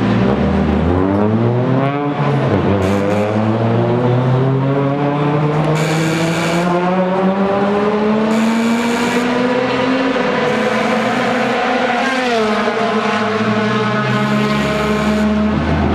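Race car engines on a circuit: one engine note climbs steadily under acceleration for several seconds while another car's note falls away, then drops sharply about twelve seconds in, as on an upshift or lift, and climbs again.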